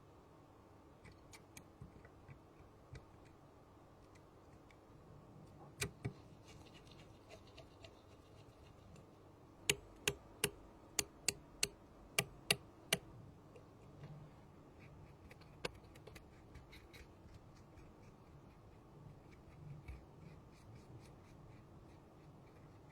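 Small tools and parts being handled in close-up, with light rubbing and faint ticks. A pair of sharp clicks comes about six seconds in, then a quick run of about nine clicks, roughly three a second, and one more click a few seconds later.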